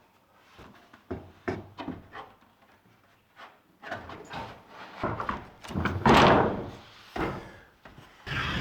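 Wooden cabinet doors being handled: a run of short knocks and clicks, then a louder thud about six seconds in.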